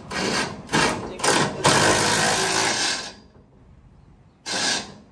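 Power impact wrench run in several short bursts, then one longer burst of about a second and a half, and one more short burst near the end. The socket is not grabbing because it doesn't fit the bolt.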